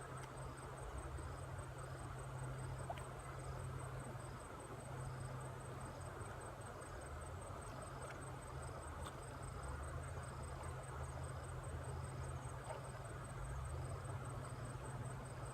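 Insects chirping: a thin, steady high tone and faint regularly repeating chirps over a constant low hum and a noisy background.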